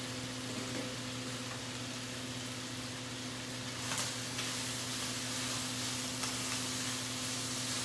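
Chicken pieces sizzling as they fry in a pan on a gas stove, stirred with a utensil, with a few light clicks of the utensil against the pan about four seconds in. A steady hum runs underneath.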